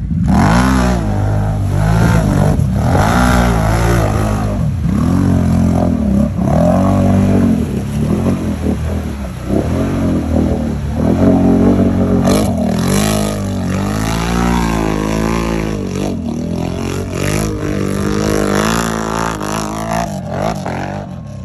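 Off-road vehicle's engine revving hard in repeated surges, its pitch climbing and dropping back about every second or so.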